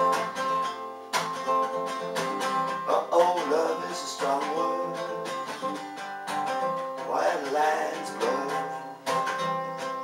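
Acoustic guitar strummed in a steady rhythm as song accompaniment, with a man's voice singing a few short phrases over it.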